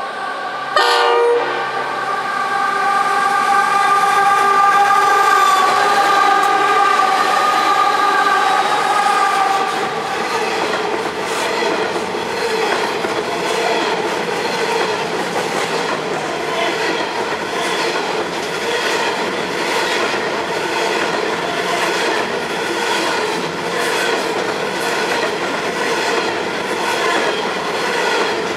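Diesel-hauled freight train passing close by: three locomotives sound their horn, a short loud blast about a second in and then a held chord of several notes that ends about ten seconds in as they go by. Empty coal hopper wagons follow, rumbling past with a steady clickety-clack of wheels over rail joints.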